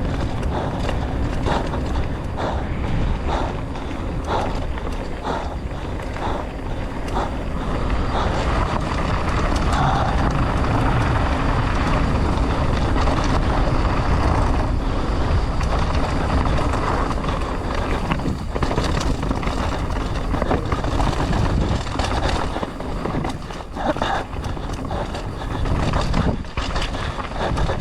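Mountain bike descending a rough dirt trail at speed: wind rushing over the microphone, tyres on dirt, and frequent knocks and rattles from the bike over the bumps.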